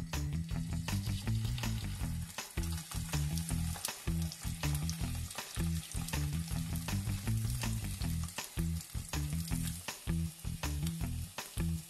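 Strips of homemade cheese sizzling in hot olive oil in a frying pan, with frequent sharp pops, over background music.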